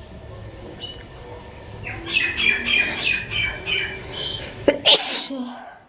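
A small bird chirping in a quick run of short high calls, then a person sneezing loudly near the end, brought on by tickling inside the nose.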